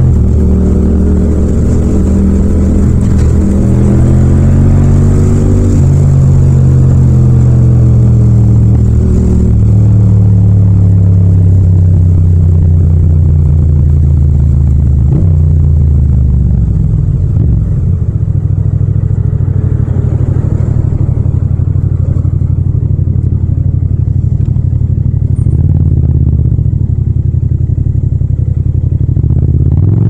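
Yamaha MT-07 parallel-twin engine with a Yoshimura exhaust, heard from the rider's seat while riding. The engine note falls over the first few seconds as the throttle eases off, holds steady, drops again about halfway and runs at a low steady cruise, with a brief dip near the end.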